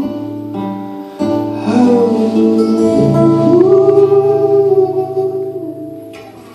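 Band playing the last bars of a rock song: a singer's long held notes over guitar and sustained chords, the final chord ringing out and fading away near the end.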